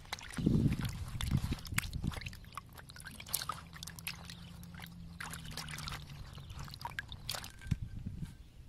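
Water sloshing and splashing in a banana-leaf bowl as hands rub and rinse a fish roe sac, loudest in the first two seconds, with small drips and clicks after. A faint low hum runs underneath through the middle.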